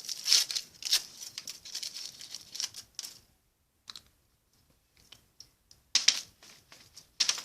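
Crackling and clicking handling noises as a Kinder Surprise egg's plastic toy capsule is worked open by hand. A run of small crackles and clicks for about three seconds, a pause, then two sharper clicks near the end.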